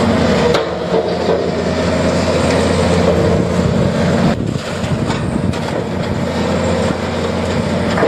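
Volvo EC330B LC tracked excavator's diesel engine running steadily under load while its grapple handles scrap steel, with a few brief knocks.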